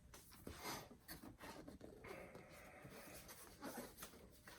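Faint rustling and soft knocks of books and paper being handled, with a sliding scrape lasting about a second, about two seconds in.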